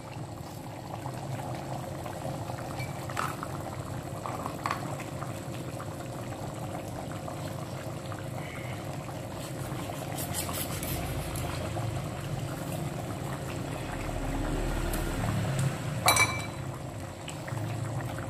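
Spiced tauco sauce simmering in a pot, a steady bubbling, as Kara coconut milk is squeezed into it from a sachet. A few sharp clicks sound over it, the loudest near the end.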